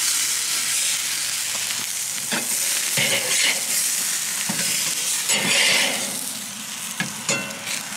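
Burger patties sizzling on a hot charcoal grill grate, a steady high hiss of spitting fat. A metal spatula scrapes and clinks against the grate several times as the burgers are lifted off, and the sizzle eases near the end.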